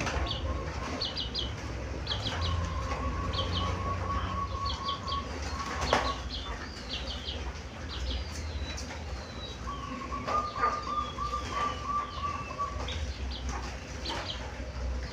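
Zebra dove (perkutut) cooing in drawn-out trilling phrases, while small birds chirp in quick high clusters; one sharp click about six seconds in.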